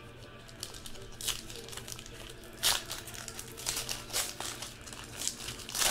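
A trading card pack wrapper being torn open and crinkled by hand: irregular crinkling with several louder crackles.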